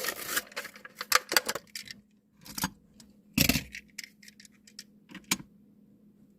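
Hands opening a Hot Wheels blister pack: a quick run of crackles and clicks from the stiff plastic and card over the first two seconds, then scattered clicks and a single thump about three and a half seconds in.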